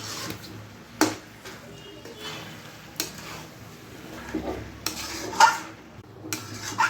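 A cooking utensil scraping and knocking against a pan as chicken is stirred together with freshly added fenugreek (methi) leaves, with several sharp clinks along the way.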